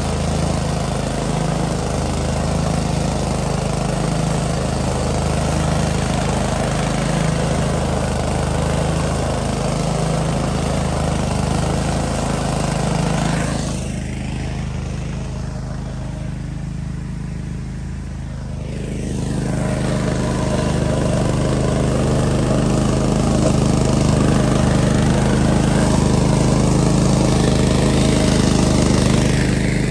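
Gasoline engine of a walk-behind field and brush mower running steadily. For about five seconds midway the sound turns duller and a little quieter, then comes back up to full.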